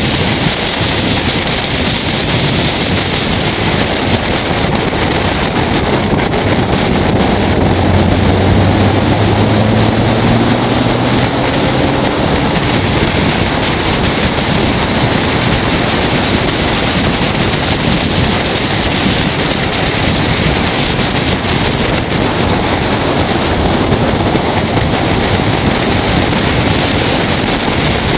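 Heavy wind rush over a camera mounted on a race car's bonnet at speed, with the car's engine running underneath. About a third of the way in, an engine note rises in pitch for a few seconds.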